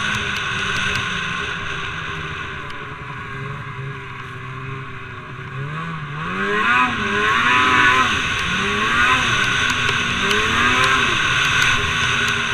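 Snowmobile engine running steadily, then revving up and down again and again from about halfway through, with steady track and wind hiss underneath.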